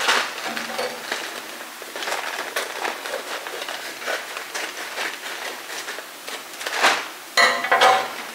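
Scissors snipping open a brown paper package, with irregular paper rustling and crinkling. There are two louder bursts of rustling near the end.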